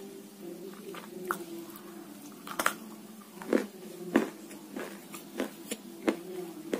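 Sharp, irregular crunches and cracks of hard, chalky grey lumps being bitten or broken, about eight in all, over a steady low hum.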